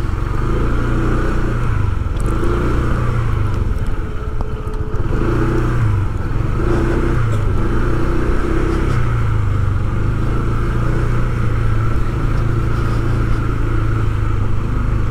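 Motor vehicle engine running continuously, its pitch rising and falling several times as the vehicle speeds up and slows down, heard from on board.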